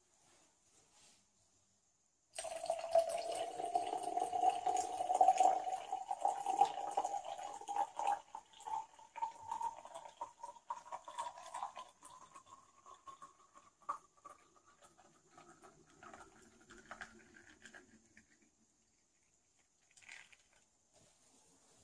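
Coffee poured in a steady stream from a carafe into a glass bottle of ice and water. It starts about two seconds in, and the filling note rises in pitch as the bottle fills. The stream thins and stops a few seconds before the end.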